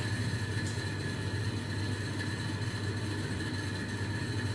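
Steady low machine hum with faint steady high-pitched tones above it.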